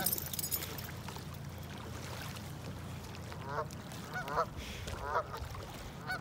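Canada geese honking: four short honks in the second half, roughly one every three-quarters of a second.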